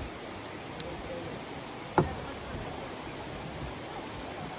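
Steady rush of a shallow river running over a rocky bed, with faint voices of people nearby. A single sharp thud about two seconds in.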